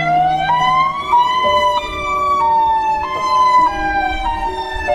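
EOWS 612 outdoor warning siren sounding: one wailing tone with many overtones that climbs in pitch, then jumps up and down in abrupt steps rather than gliding smoothly, over a weaker steady lower tone.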